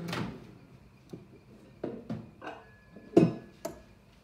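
Dishes being handled off to the side in a kitchen. A sharp knock at the start is followed by a string of clinks and knocks, the loudest about three seconds in.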